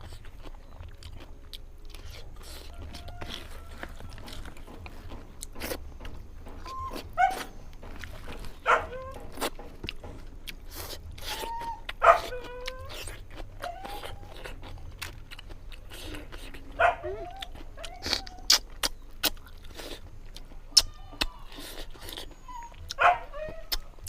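A dog whining in short, bending calls, about eight times at uneven intervals, with sharp clicks in between.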